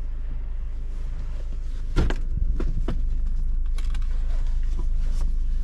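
Steady low rumble of a vehicle heard from inside the cab, with a few short creaks and clicks starting about two seconds in.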